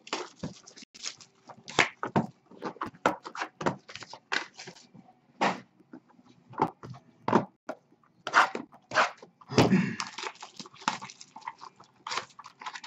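Plastic shrink-wrap being torn and crinkled off a box of baseball cards, with the cardboard box handled: a run of irregular sharp crackles and rustles.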